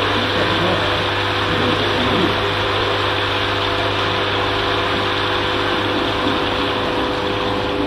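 Steady machine hum with a few constant tones from the working scale model of the Maeslantkering storm surge barrier, running as its two barrier arms are driven slowly shut across the water.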